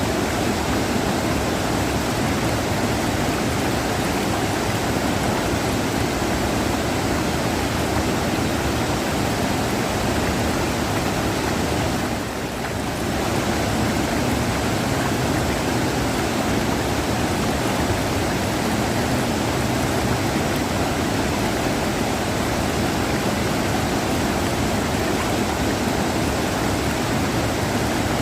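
River water rushing steadily, with a brief slight dip in level about twelve seconds in.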